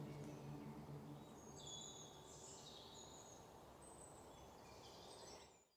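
Near silence: faint outdoor ambience with a few short, high bird chirps, while the last held note of the music dies away in the first second. The sound cuts off completely just before the end.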